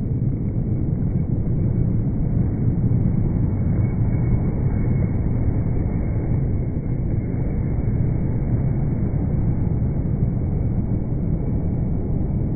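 Airbus A330 jet engines on landing, heard as a steady, deep, even rumble with no distinct tones. The upper frequencies are missing, as in slowed-down slow-motion audio.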